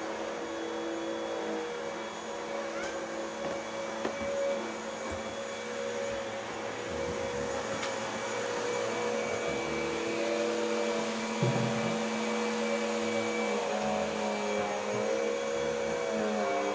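A steady mechanical whir and hum, like a motor-driven household appliance running, with a short low knock about two thirds of the way through.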